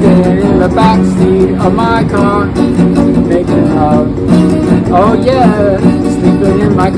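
Acoustic guitar strummed in a steady rhythm, with a wavering melody line over the chords.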